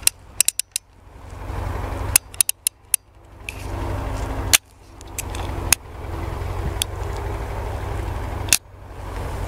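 Sharp metallic clicks from a single-action revolver being handled, the hammer drawn back through its notches to full cock. The clicks come in a quick cluster about half a second in, another about two seconds in, then single clicks every second or so, over a steady low rumble.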